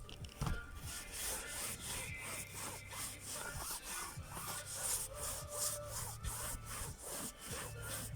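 Rhythmic back-and-forth rubbing or scraping strokes, about two to three a second, with faint music underneath.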